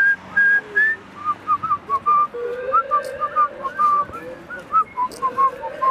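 A person whistling a tune: a quick run of short, clear notes hopping up and down in pitch. Near the end a rising rush of noise comes in underneath.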